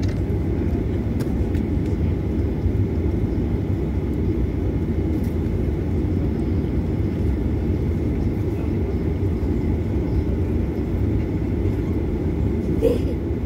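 Steady low rumble inside the cabin of a Boeing 737-900ER taxiing: its CFM56-7B turbofans at low taxi thrust together with the airframe rolling on the taxiway.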